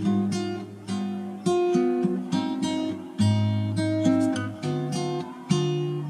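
Background music: an acoustic guitar strums chords about once a second, each ringing out and fading before the next.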